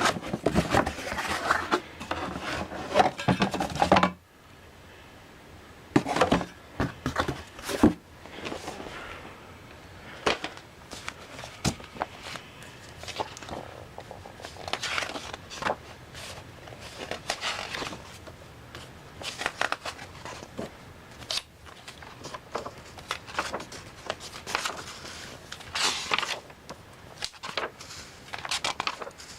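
Irregular handling noises: rustling, crinkling and light knocks and scrapes. The rustling is dense for about the first four seconds, then comes in scattered bursts.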